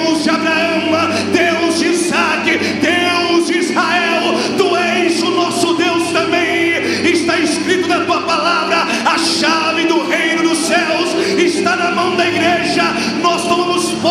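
A man singing a worship song into a microphone over instrumental backing with sustained chords and cymbal strokes.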